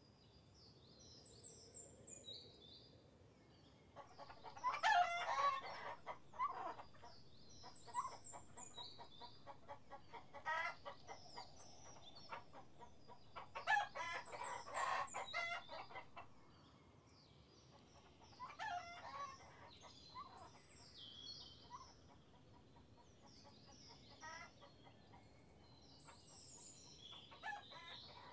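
Rooster crowing three times, each crow about two seconds long, over scattered high chirps of small birds.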